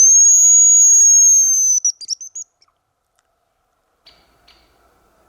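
Hazel grouse caller blown: one long, very high, thin whistle of nearly two seconds, followed by a short run of quick stuttering notes, imitating a hen hazel grouse's call.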